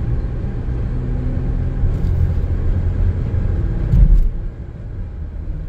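Cabin road noise of a 2017 Cadillac XT5 under way: a steady low rumble of tyres and engine while driving. There is one thump about four seconds in, after which the noise is quieter.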